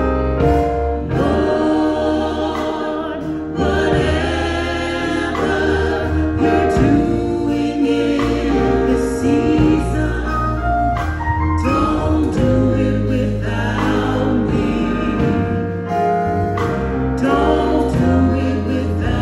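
Gospel choir singing with instrumental backing that holds low bass notes under the voices.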